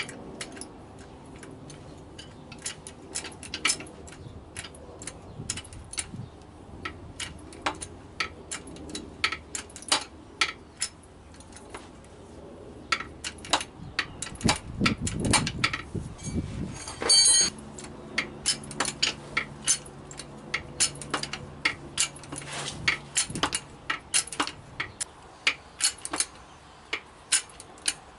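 Sharp metallic clicks and clinks, irregular, often a couple a second, from working the hand pump of a 10-ton port-a-power hydraulic kit whose pull cylinder draws the chains round the leaf springs tight. One louder ringing clink comes a little past the middle.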